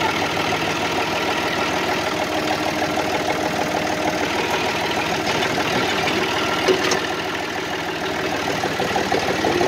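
Farm tractor engine running steadily while its front-end loader bucket is raised and curled back after dumping dirt. A single sharp clunk comes about two-thirds of the way through.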